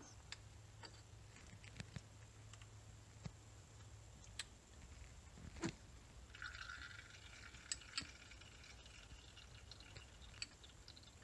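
Faint sound of brake fluid and air hissing out through an opened caliper bleeder screw into a clear bleed hose for a few seconds, starting about six seconds in, as air is bled from the brake caliper. A few light clicks come before it.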